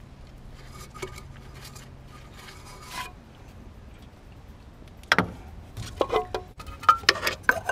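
Hard plastic clicks and knocks from a gloved hand handling the exposed impeller of a Jandy variable-speed pool pump. The clatter starts about five seconds in, after a stretch of only a faint steady hum.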